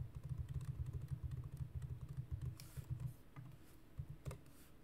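Computer keyboard keys pressed in a fast, dense run for about three seconds, then a few single keystrokes near the end.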